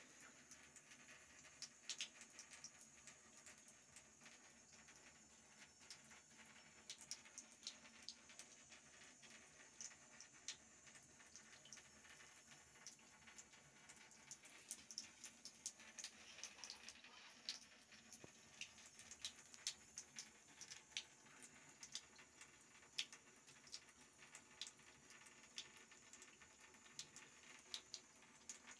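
Faint trickle of a thin stream from a bathtub tap, with many quick, irregular soft ticks and patters as a cat laps at the stream and drops fall into the tub.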